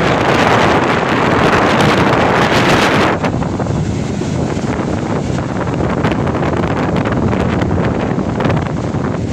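Rough sea surf breaking, with wind buffeting the microphone: a steady loud rush that eases a little after about three seconds.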